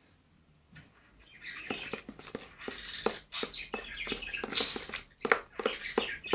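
Pet bird chirping in quick, short calls, starting about a second and a half in.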